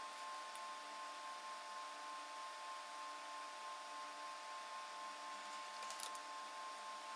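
Steady background hiss with a constant high tone, and a few light clicks about six seconds in.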